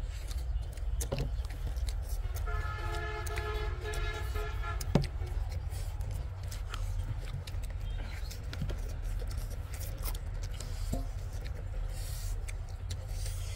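A vehicle horn sounds once, one steady note held for about two seconds a few seconds in. Under it runs a steady low rumble, and scattered small clicks and smacks come from hands tearing meat and eating.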